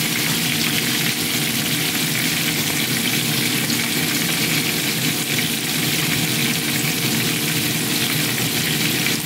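Whole round scad (galunggong) shallow-frying in hot oil in a pan: a steady, even sizzle.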